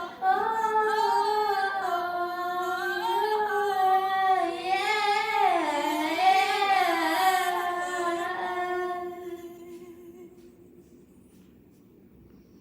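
A female voice singing a long, wavering sustained note and vocal run with no words, fading out about ten seconds in.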